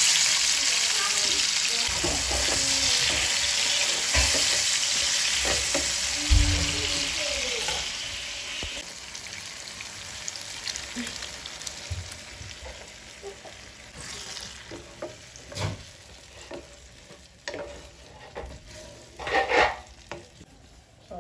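Chopped tomatoes and peppers sizzling as they fry in hot oil in a pan. The sizzle is loudest for the first several seconds and then dies down, with a spatula stirring and knocking against the pan now and then.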